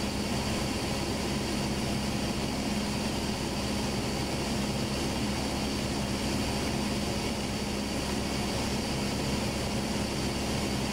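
Steady drone of a light airplane's engine and propeller heard inside the cockpit, an even hum with a constant low tone.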